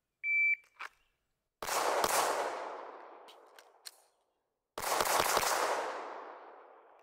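A shot timer beeps once, briefly, then a handgun is fired from the draw: a pair of shots, then a quicker string of about four, each with a long echo.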